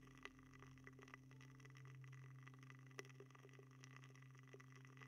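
Faint, scattered soft clicks and taps from ASMR ear-treatment work close to the microphone, over a steady low electrical hum. The sharpest click comes about three seconds in.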